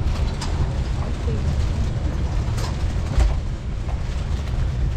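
Steady low rumble of street noise, with a few short clicks or knocks.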